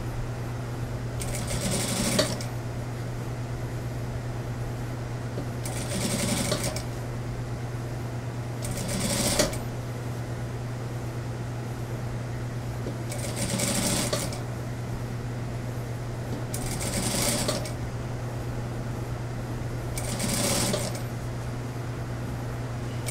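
Industrial lockstitch sewing machine stitching in six short runs of about a second each, with pauses between, while a sleeve is eased into a suit jacket's armhole. A steady low hum runs underneath.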